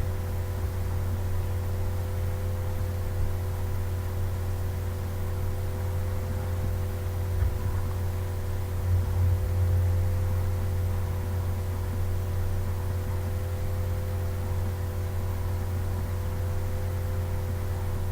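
Steady low hum with a few fainter steady higher tones over a light hiss, unchanging throughout.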